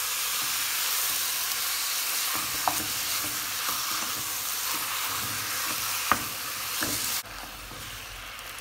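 Raw ground beef frying in oil in a nonstick pot: a steady sizzle while a wooden spatula stirs and breaks it up, knocking against the pot a few times. The sizzle drops off abruptly about seven seconds in.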